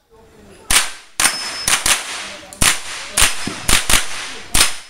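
Mini-rifle shots fired in quick succession, about nine sharp cracks each with a short echo, some in fast pairs.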